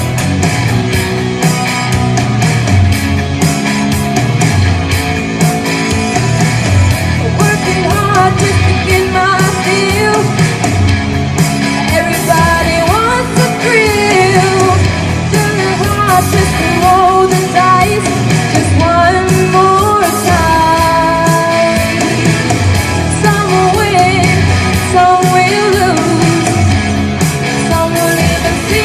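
Loud rock song with drums, bass and guitar, and a lead singer coming in about eight seconds in.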